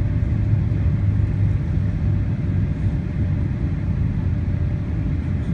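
Steady low rumble inside the cabin of an Airbus A380 as it taxis, its engines running, with a faint steady hum above the rumble.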